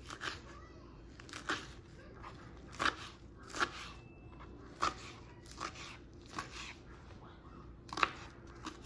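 Kitchen knife chopping peeled carrot ribbons on a plastic cutting board: about nine crisp crunching cuts, unevenly spaced roughly a second apart.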